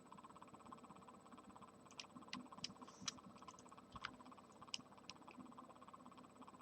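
A handful of soft computer mouse and keyboard clicks, scattered between about two and five seconds in, over a faint steady electrical hum.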